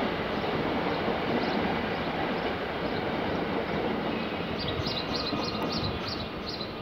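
ÖBB Cityjet electric multiple unit (Siemens Desiro ML) running out of the station, a steady rumble of wheels and traction motors that eases off slightly as it moves away. Short high chirps, about three a second, come in near the end.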